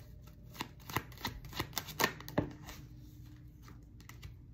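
A deck of tarot cards being shuffled by hand: a quick run of crisp card clicks and slaps in the first half, then a few softer clicks near the end as a card is drawn from the deck.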